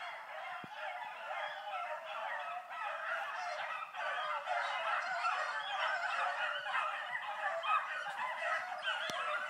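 A pack of rabbit dogs giving tongue together on a rabbit's trail: many overlapping baying voices in one unbroken chorus.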